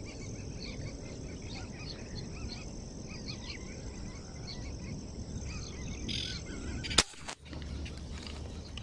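Small birds chirping over a steady low background noise. About seven seconds in comes a single sharp crack, the loudest sound: an air rifle fired at fish in the water.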